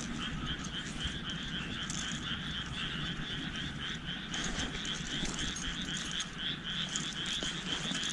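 Frogs calling at night: a steady chorus of short, high-pitched croaks repeating about four times a second, over a low rumble.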